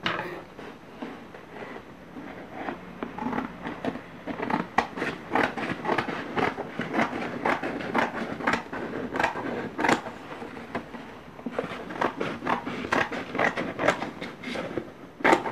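Scissors snipping through black chart paper, a run of short, sharp cuts at an irregular pace, trimming the excess off a rolled paper cone.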